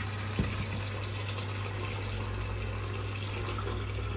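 Tap water running steadily into a container of pigtail pieces, refilling it for another rinse to wash out the salt. A light knock about half a second in.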